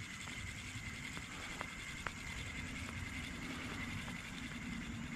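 Spinning reel cranked steadily to retrieve a lipless crankbait: a soft, even whir with a few light clicks, over a low outdoor rumble.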